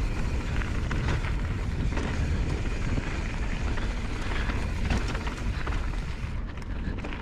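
Mountain bike riding fast down a loose gravel trail: tyres rumbling and crunching over the stones with wind buffeting the microphone. High-pitched crunching eases slightly near the end.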